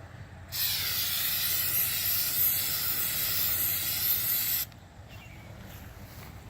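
Aerosol can of Flex Seal rubber sealant spraying in one steady hiss of about four seconds, starting about half a second in and cutting off sharply.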